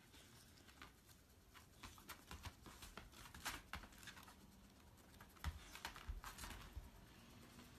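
Faint scratching and tapping of a dog's paws and claws on a tatami mat as it noses and pushes a rolled-up hedgehog, with a few soft thumps about five and a half to six and a half seconds in.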